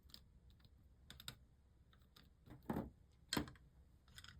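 A few faint, sparse light clicks and taps of small tools and materials being handled at a workbench, the two in the middle the loudest.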